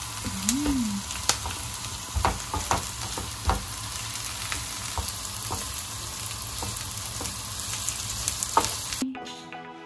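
Food with garlic sizzling in a frying pan, with a utensil knocking and scraping against the pan now and then. About nine seconds in the sizzling cuts off suddenly and soft music begins.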